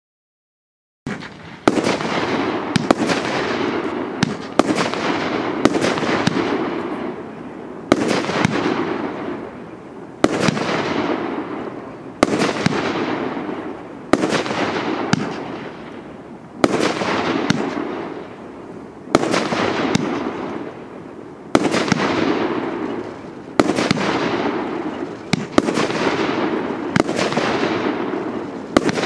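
A 25-shot, 1.2-inch fireworks cake (Kometa P7411 'Yellow Sea') firing, starting about a second in. Shots come one after another, roughly every one to two seconds. Each is a sharp report followed by a noisy tail that fades.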